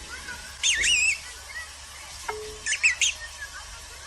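A bird calling: two bouts of high, wavering chirps, one about half a second in and another near three seconds, with fainter chirps in between.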